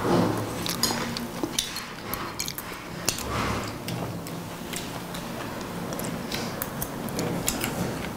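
Chopsticks and tableware clicking and clinking against plates and bowls at a meal: many light, irregular clicks throughout.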